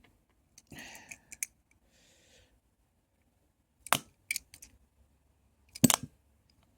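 Screwdriver striking a remote control: a few light clicks and two sharper knocks, about four and six seconds in.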